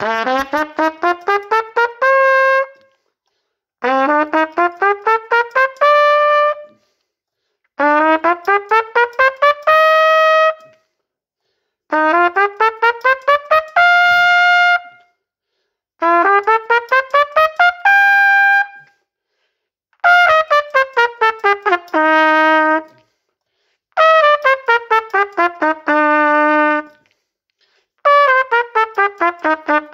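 Trumpet playing a warm-up exercise: eight short phrases, one every four seconds, each a quick run of notes, the first two slurred and the rest tongued, ending on a held note. The first five runs go up and the last three come down.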